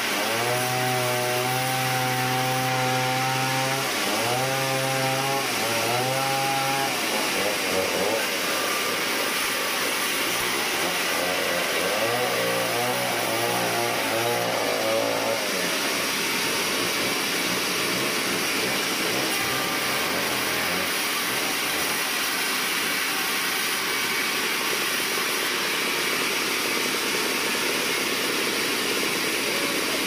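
A sawmill band saw runs and rips a board lengthwise, giving a steady, loud noise of the blade cutting wood. A humming tone holds, breaks and wavers over the first fifteen seconds, then fades.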